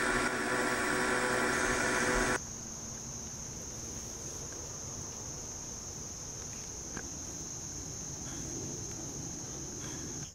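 Guitar music cuts off about two seconds in. After that, insects in summer woodland keep up a steady high-pitched trill over faint outdoor background noise.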